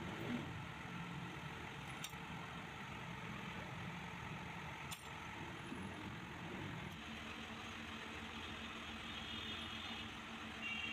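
A steady low mechanical rumble, with faint metallic clicks about two and five seconds in as parts of a dismantled motorcycle engine are handled. A low steady hum sets in about seven seconds in.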